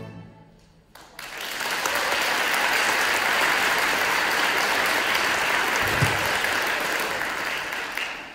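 The last notes of a school string orchestra die away, then the audience applauds for about seven seconds, thinning out near the end.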